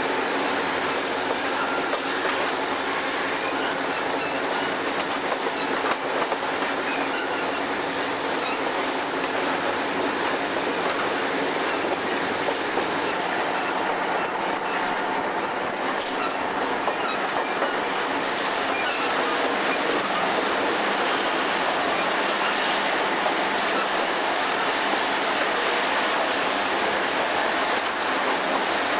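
Diesel-hauled passenger train running along the track, heard from on board: a loud, steady rush of wheels on rails.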